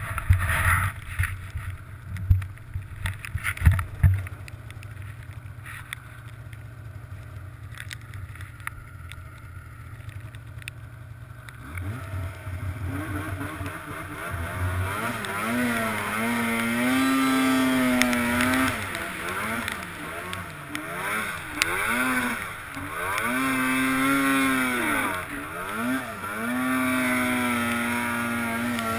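Snowmobile engine, low and steady at first with a few thumps in the first four seconds. About twelve seconds in it revs up and runs hard, its pitch rising and falling again and again as the throttle is worked, and it holds high near the end.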